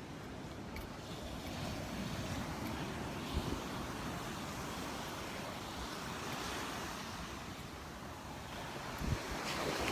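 Surf washing onto a beach, with wind buffeting the microphone. There are two brief low thumps of wind on the mic, about three seconds in and near the end, and the surf grows louder at the very end.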